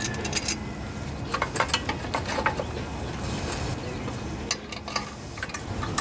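Scattered light metallic clinks and taps as the cylinder head and its steel head bolts are fitted by hand onto a Briggs & Stratton small engine block during head gasket replacement.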